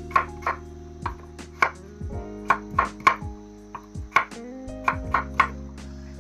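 Kitchen knife chopping new potatoes on a wooden cutting board: about a dozen sharp, unevenly spaced knife strikes on the board, over soft background music with sustained tones.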